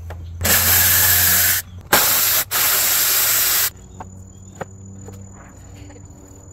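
Snap-on cordless ratchet running in three bursts of about a second each, backing out a 10 mm fan-shroud fastener. After that come a few light ticks as the plastic fan shroud is handled.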